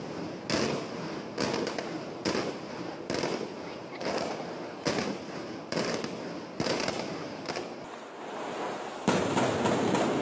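Fireworks going off across a building's facade: sharp bangs at a little under one a second over a continuous crackle. About nine seconds in, a louder, steady rushing noise takes over.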